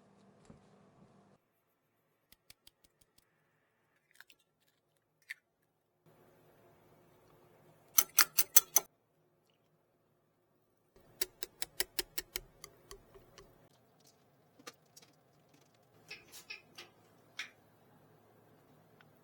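Kitchen utensils and cookware being handled: clusters of sharp clicks and taps, a quick run of about six loud ones, then a longer run of a dozen or so, then a few scattered ones.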